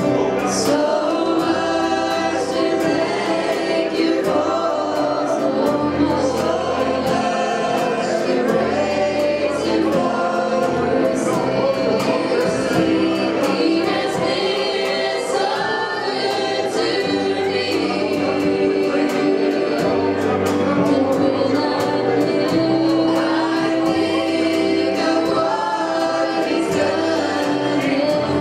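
Church congregation singing a gospel worship song, accompanied by a band with a drum kit keeping a steady beat.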